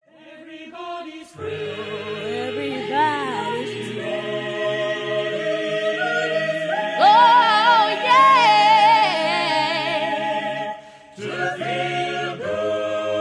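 Background music: a cappella choral singing in sustained chords, with a high voice singing with vibrato in the middle. It drops away briefly about eleven seconds in, then the chords resume.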